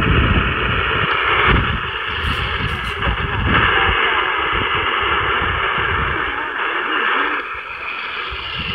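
Shortwave broadcast on 9.500 MHz coming through a Grundig portable radio's speaker: thin, hissy station audio with a voice under the static and a faint steady whistle, which comes in suddenly at the start.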